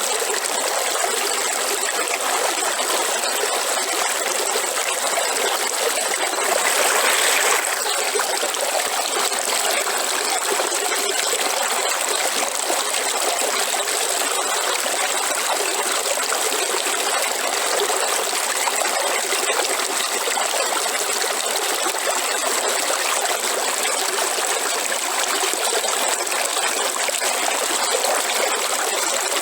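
River water running and splashing steadily over rocks, briefly louder about seven seconds in.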